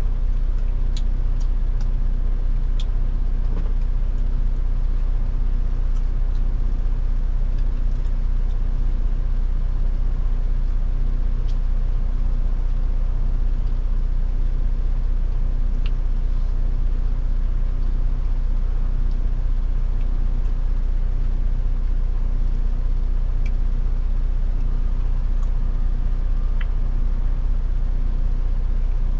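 Steady low rumble of a semi-truck's diesel engine heard from inside the cab, with a few faint clicks.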